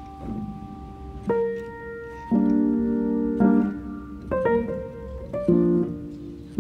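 Background piano music: slow held chords, a new one struck about once a second.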